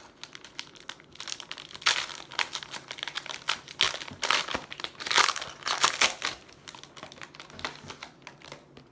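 Foil wrapper of a trading card pack crinkling in irregular crackles as it is torn open and handled.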